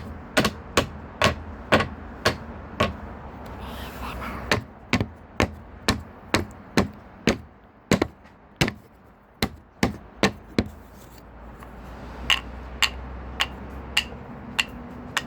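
Hammer striking wood, about two sharp blows a second, in three runs with short pauses between them.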